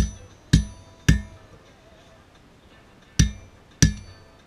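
Hammer striking on a steel anvil, each blow ringing out with a bright metallic tone. Three blows about half a second apart, a pause of about two seconds, then two more.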